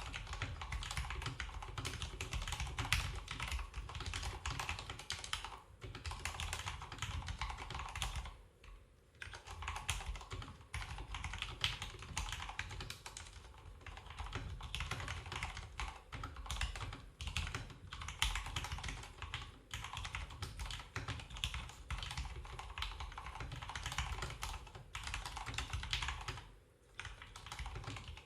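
Continuous fast typing on a mechanical keyboard whose switches have just been lubed: a dense stream of key presses and bottom-outs, with short pauses about nine seconds in and again near the end.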